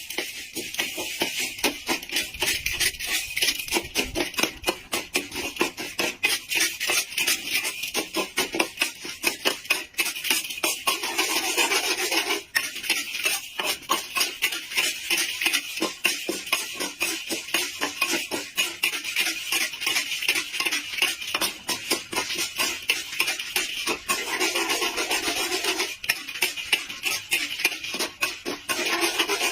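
A utensil stirring and scraping food around in a pan: a steady, fast run of scrapes and clicks.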